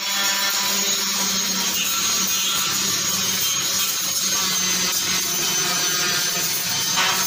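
Electric angle grinder grinding steel fence tubing: a steady grinding rasp with a faint high motor whine.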